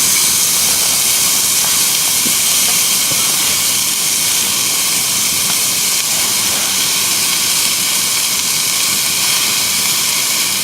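A loud, steady rushing hiss with no pitch or rhythm to it, beginning to fade right at the end.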